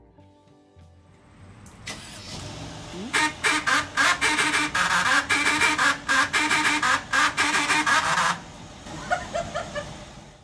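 A car's faulty electric parking brake actuator at the rear wheel making a harsh mechanical noise. It starts about two seconds in, rises in pitch, then pulses loudly several times a second for about five seconds before dropping to fainter pulses.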